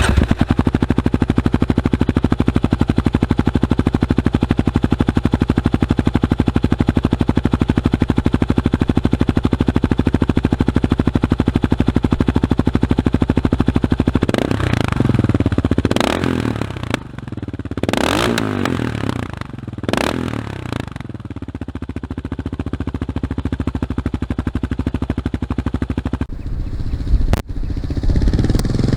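2022 Kawasaki KLR650's single-cylinder engine running through a Yoshimura RS-2 exhaust, steady at first, then revved in four quick blips about halfway through, each rising and falling back, before settling to an idle again. A sharp click comes near the end.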